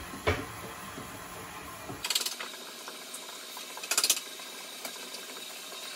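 Electric stand mixer running steadily while it creams butter and sugar, with a knock just after the start and two short bursts of rapid clicking, about two and four seconds in, as eggs are beaten by hand in a small bowl.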